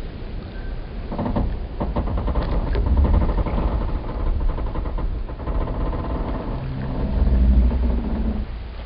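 Wooden boat hulls and pier timbers creaking and groaning in long strains over a low rumble: a rasping creak in the first few seconds and a deeper, steadier groan near the end.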